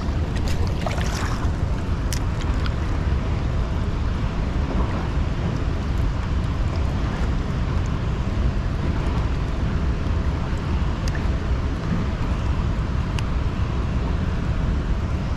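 Wind buffeting the microphone in a steady low rumble, with a few faint scattered clicks.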